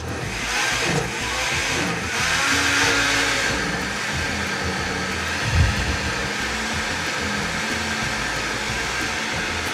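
Countertop blender motor running steadily as it purées white corn kernels with milk, melted butter, lard and sugar into a thick corn dough. It starts up at the very beginning, and there is one dull knock about halfway through.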